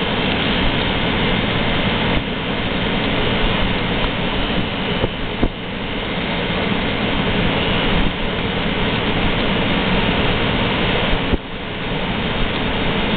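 Friedrich EM24M34 room air conditioner running: a loud, steady rush of fan air and machinery, with a single sharp click about five seconds in and a brief dip near the end.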